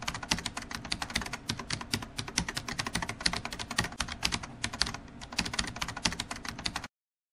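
Computer-keyboard typing used as a sound effect: a fast, continuous stream of key clicks that cuts off suddenly near the end.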